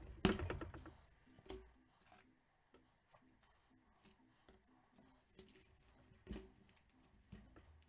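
Gloved hands handling a sawn-open lead-acid car battery: a short clatter of the plastic case near the start as the cut-off top is moved aside. Then scattered light knocks and clicks of plastic and lead plates being handled.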